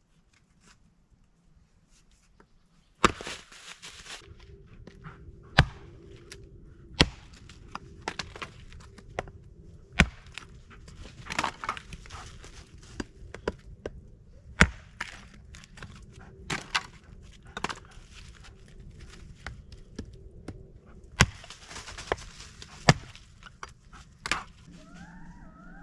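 Wood being chopped with a blade: about eight loud, sharp knocks at uneven intervals, starting about three seconds in, with lighter taps between them.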